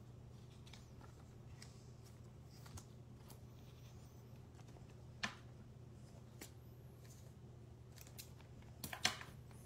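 Faint clicks and taps of trading cards being handled and laid down, over a low steady hum. A sharper click comes about five seconds in, and a short cluster of clicks near the end.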